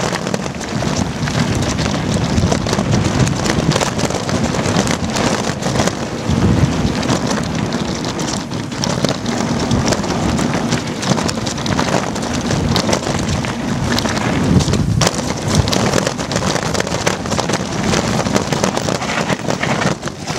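Downhill mountain bike descending a rocky dirt trail: knobby tyres crunching over loose stones and dirt, the bike rattling with many sharp knocks over the bumps, and wind buffeting the microphone.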